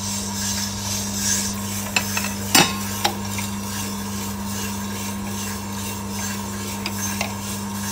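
Small electric sample coffee roaster running with a freshly charged batch of green beans tumbling in its drum: a steady hum with a rasping rustle of beans. A few sharp metallic clicks come about two to three seconds in as the sample trier is pulled from the drum.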